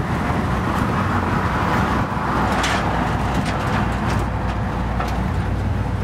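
A car's engine and tyre noise, heard from inside the cabin while it drives on the freeway, as a steady rumble and road hiss. A brief louder swish comes about two and a half seconds in.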